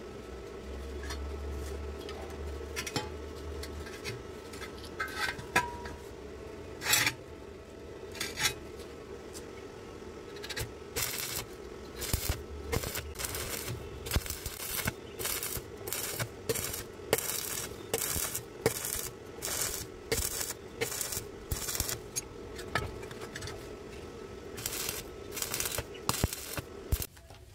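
Stick welding electrode arcing on steel in short crackling, sputtering bursts over a steady low hum. A few scattered cracks come at first, then from about ten seconds in the bursts run several a second as the joint is welded in short strikes.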